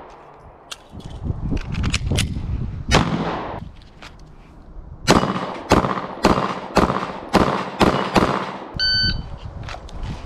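Smith & Wesson M&P Shield Plus micro-compact pistol being fired: a few sharp clicks and single shots, then a quick string of about eight shots at roughly two a second. Near the end there is a short electronic beep.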